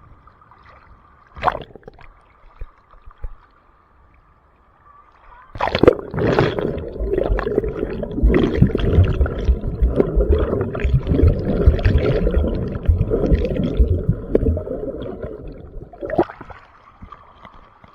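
Ocean waves washing in close to the microphone: a loud, churning rush of water that swells up about five seconds in and dies away near the end.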